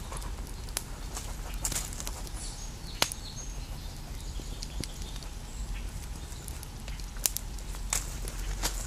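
Small wood campfire crackling, with scattered sharp pops and snaps over a low steady rumble.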